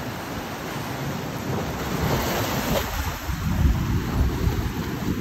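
Wind buffeting the microphone over the rush of choppy sea water, with heavier low gusts in the second half.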